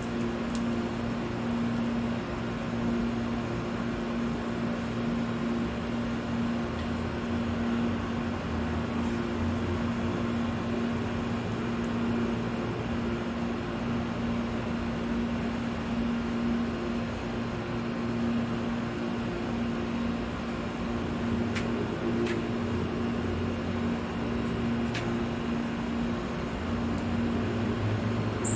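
Steady machine hum, two low tones held over a constant hiss, with a few faint short clicks in the second half.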